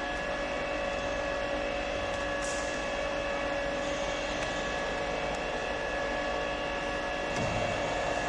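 Servo-driven CNC aluminium profile bending machine running: a steady machine hum with several whining tones, growing slightly louder near the end.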